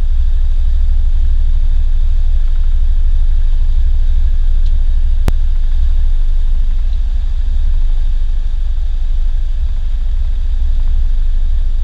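Steigercraft boat's engine running steadily under way, a loud low drone heard from inside the cabin, with a single sharp click about five seconds in.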